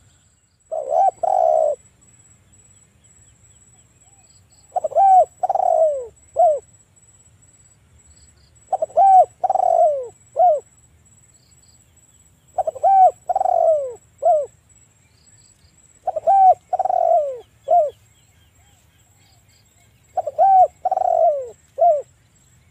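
Spotted dove cooing, repeating its song phrase about every four seconds: each phrase is a few coos followed by a short, separate last note.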